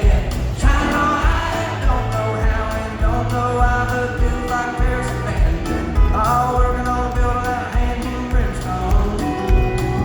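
Live country band playing a song with a steady beat, a male lead voice singing over guitars, bass and drums.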